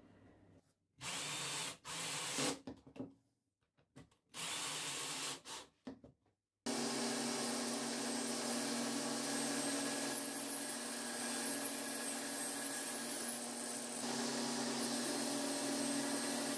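Bench-mounted circular saw (table saw) running steadily, its motor hum constant, while a wood block on a plywood sled is fed into the blade for an angled cut. It comes in abruptly about seven seconds in. Before that there are two short rustling handling noises.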